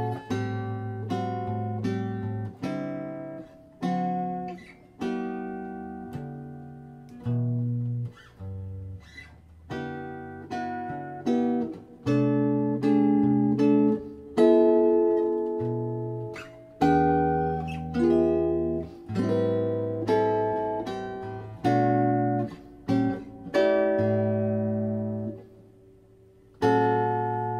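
Solo archtop guitar playing plucked chords with bass notes beneath, about one a second, each left to ring and fade. A brief pause near the end, then a fresh chord.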